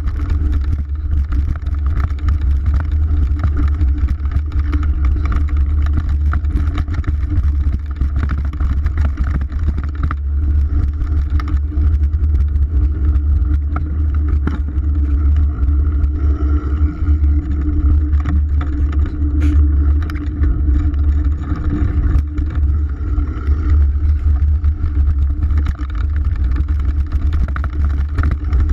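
Wind noise on a GoPro Hero 3's microphone as a mountain bike rolls fast down a dirt singletrack, with the bike rattling and clattering over bumps throughout.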